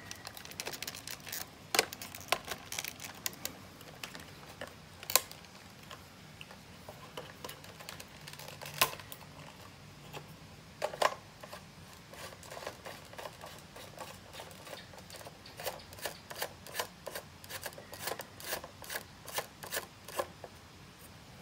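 Irregular plastic clicks, knocks and rattles of a D-Cobra M416 spring toy rifle being handled as parts are fitted to its front end, with a few louder knocks among many small clicks.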